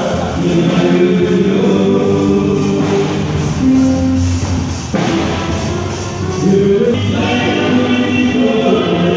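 Gospel music: a choir singing, with long held notes.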